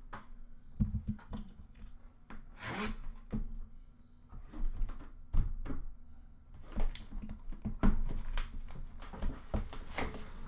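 Upper Deck The Cup hockey card box being handled and opened: its cardboard packaging rubbing and scraping, with scattered knocks and taps.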